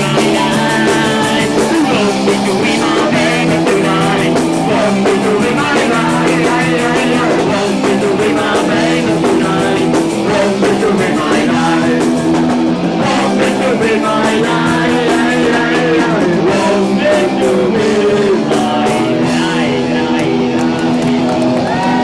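Punk rock band playing live: loud distorted electric guitar chords over bass and drums, with some singing.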